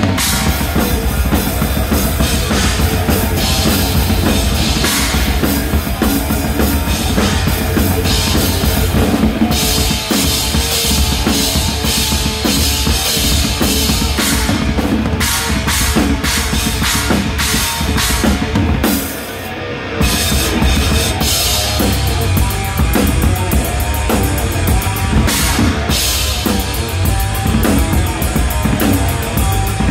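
Drum kit played hard and close-up in a live band performance: bass drum, snare and cymbals driving a steady beat over the band. The music drops out briefly about two-thirds of the way through, then comes straight back in.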